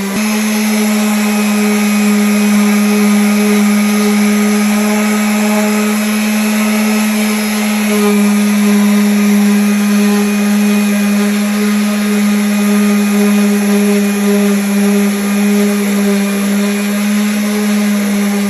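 Electric sander running steadily against wood: a continuous hum with one strong low tone that holds even throughout.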